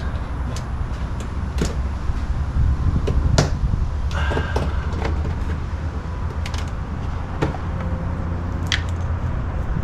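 Scattered clicks and knocks of hands and a tool working plastic trim fasteners loose from a car's wheel-well trim, with a short scrape about four seconds in, over a steady low rumble.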